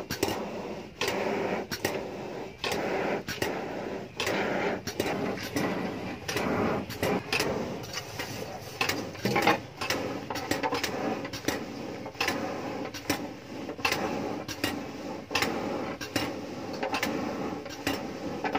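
Charcoal forge fire blown by an air blower while a billhook blade heats in it: a steady whir with frequent irregular crackling pops from the burning charcoal.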